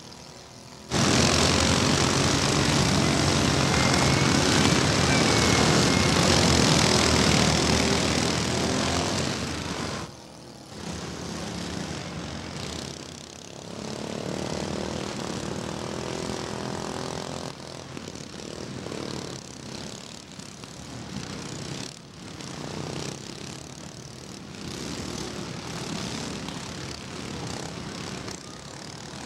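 Several riding lawn mower engines running hard together, an overlapping mechanical drone. It comes in loud about a second in and drops to a lower, uneven level about ten seconds in.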